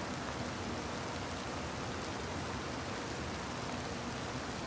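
Steady hiss of rain starting to fall on the woods and dry leaf litter, even and without distinct drops or knocks.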